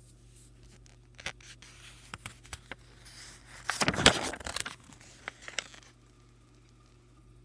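Paper rustling and crinkling as a page of a paperback graphic novel is handled and turned. The rustling is loudest in one swish about four seconds in, with scattered small clicks around it, and stops about six seconds in.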